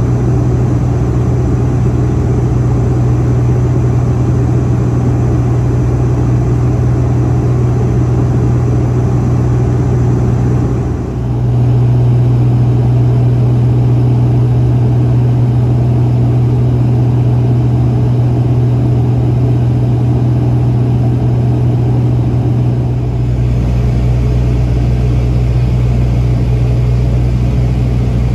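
Cabin drone of a De Havilland Canada Dash 8-Q200 turboprop heard from a seat beside the propeller: a loud, steady hum with a strong low propeller tone. It dips briefly about eleven seconds in, after which the low tone is stronger, and shifts again about twenty-three seconds in.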